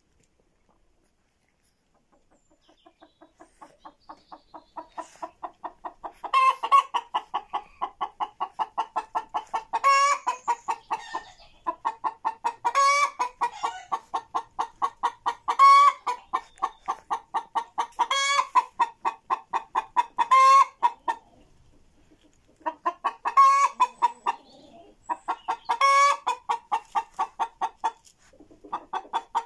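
A hen clucking rapidly and steadily, about five clucks a second, with a louder squawk every two to three seconds. It builds up from faint a couple of seconds in and breaks off briefly about two-thirds of the way through.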